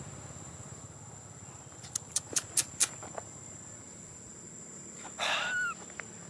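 A baby monkey gives one short cry about five seconds in, the loudest sound here. About two seconds in there is a quick run of five sharp, high clicks.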